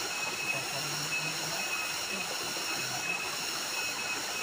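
Small waterfall splashing into a rocky pool: a steady rushing. Over it runs a steady high-pitched buzz, one note of which pulses on and off.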